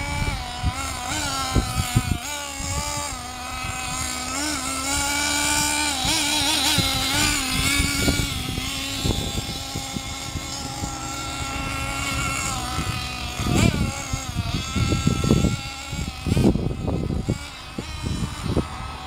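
Small nitro engine of a Team Associated RC8T 1/8-scale truggy, revving up and down over and over as the truck is driven, its high pitch rising and falling with the throttle. Low thuds and rumble come in over the last few seconds.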